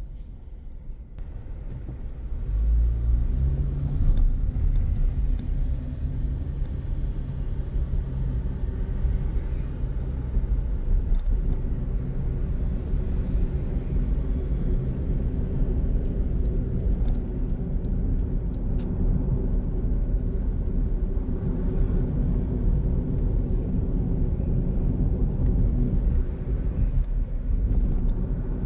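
A car driving in city traffic, heard from inside the cabin: a steady low engine and road rumble that grows louder about two seconds in as the car gathers speed, then holds steady.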